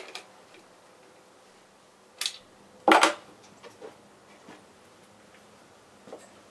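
Bolt of a sporterized Mauser K98 bolt-action rifle being worked after a shot: two sharp metallic clacks under a second apart, a couple of seconds in, followed by a few faint clicks.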